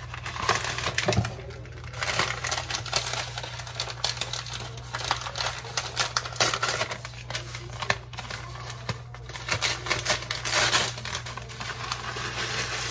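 Dry cornbread stuffing mix poured from its bag into a disposable aluminium foil pan: the bag crinkles and rustles, with many small ticks and crackles as the crumbs land.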